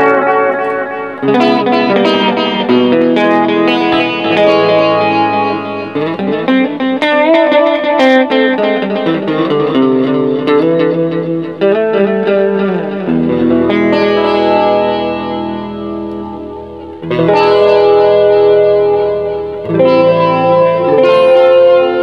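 Electric guitar played through the TC Electronic Plethora X5's Corona Chorus, demonstrating the chorus effect. Chords and notes are struck several times and left to ring.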